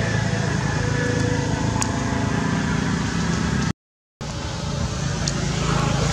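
Steady low hum of a motor vehicle engine running, cutting out completely for about half a second around four seconds in.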